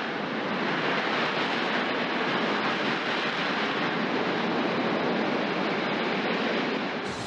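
Boeing C-17's four Pratt & Whitney F117 turbofans in reverse thrust during the landing rollout: a steady, even rushing noise with no distinct whine.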